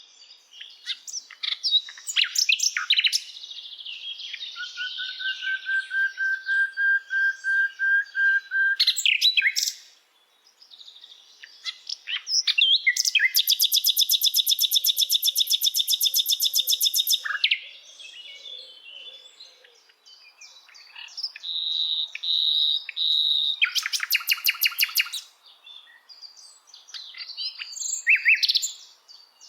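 Several birds singing and calling: varied chirps and whistles, a steady pulsed trill, and loud, fast buzzy trills that come twice.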